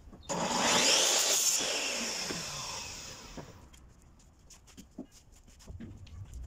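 Stanley electric miter saw starting up and cutting through a pine strip, then its motor winding down with a falling whine over about two seconds. Afterwards come a few light knocks of the wood being handled.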